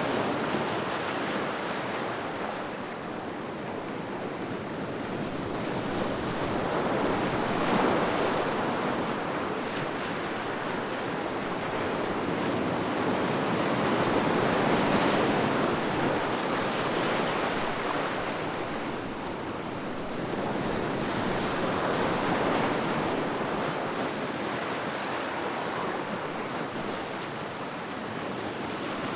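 Sea waves breaking and washing on the shore, a continuous surf noise that swells and eases every several seconds, with some wind on the microphone.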